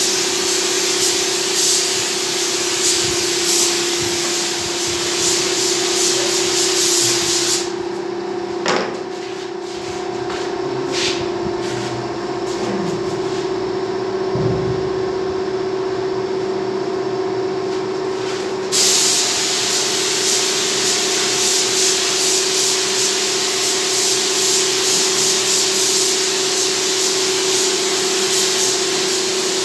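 Compressed-air paint spray gun hissing as it sprays paint onto a CNC-cut MDF panel. The spray stops about a third of the way in for roughly ten seconds, with a few knocks as the panel is handled, then resumes. A steady hum runs underneath throughout.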